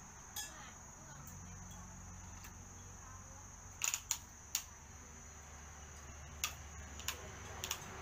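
Sharp plastic clicks and taps from a toy fire truck's ladder as it is handled, about eight in all, with a quick cluster of them around four seconds in. A steady low hum and a thin high whine run underneath.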